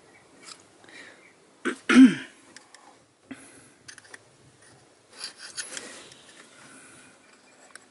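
Faint scrapes and small clicks of a metal pick working at the dust cap on a serpentine-belt idler pulley, trying to pry it off. About two seconds in there is a short cough, the loudest sound.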